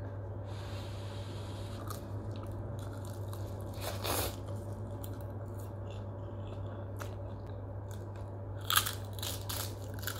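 Eating sounds of instant noodles and a seaweed snack: chewing with a brief crunch about four seconds in. Near the end comes a cluster of crisp crunches as a sheet of seaweed is bitten, the loudest sounds. A steady low hum sits underneath.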